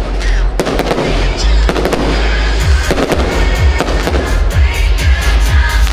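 Fireworks going off in a rapid series of bangs and crackles over loud show music. A heavy bass beat comes in about two and a half seconds in.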